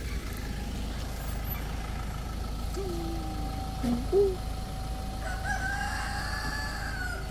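A rooster crowing, one long drawn-out crow near the end, with a shorter, lower call about four seconds in, over a steady low rumble.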